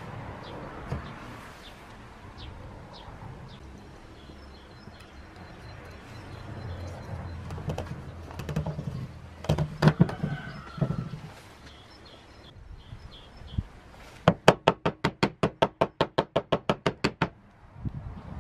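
Wooden pine block being handled and fitted together: a few dull thumps, then a quick, even run of about twenty sharp wooden knocks lasting around three seconds.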